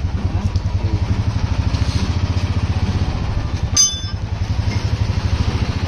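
A motorcycle engine idling with a steady, even pulse of about nine beats a second. A single short metallic clink rings out about four seconds in.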